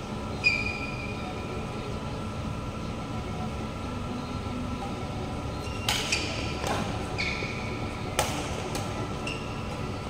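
Badminton rally: sharp pocks of racket strings striking a shuttlecock, several from about six seconds in, mixed with short high squeaks of court shoes on the sports floor, one of them about half a second in. A steady background hum runs underneath.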